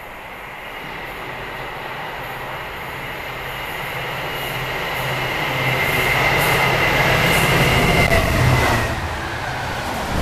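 Class 66 diesel locomotive's two-stroke V12 hauling a freight train, approaching at speed and passing close: the engine and a high steady whine grow louder, and the whine drops in pitch as the locomotive goes by about nine seconds in. The loaded car-carrier wagons then rush past near the end.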